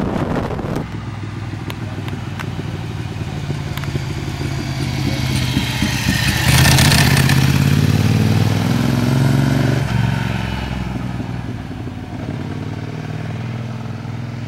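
Ducati sport motorcycle riding by, its engine growing louder, climbing in pitch in steps at its loudest around the middle, then dropping and fading as it moves away. The first second is the rush of riding on the bike itself.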